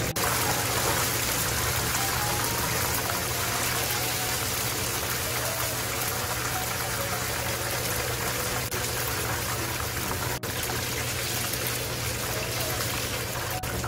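Battered chicken gizzards deep-frying in a pan of hot oil: a steady sizzle of bubbling oil over a low, steady hum.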